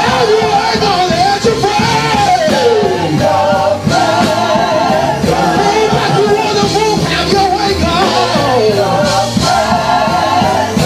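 Live gospel praise music: a singer's sustained, wavering vocal lines over a band with a steady drum beat.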